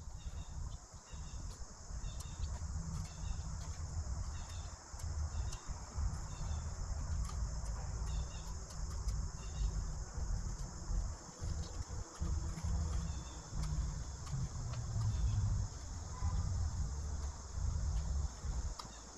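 Crickets chirping in a regular, repeating pulse, with a steady high insect buzz. These sit over an uneven low rumble.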